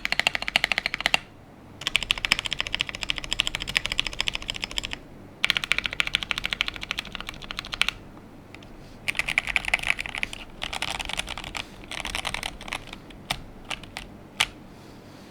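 Typing on an Akko PC75B Plus mechanical keyboard with lubed Akko Jelly Black linear switches on a polycarbonate plate and Cherry-profile keycaps. Several runs of fast, continuous typing are broken by short pauses, and a few single keystrokes come near the end.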